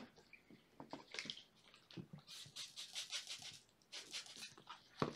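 Clear plastic package crinkling and rustling in the hands in a few short, crackly bursts as a pad is pulled out, with light scattered clicks.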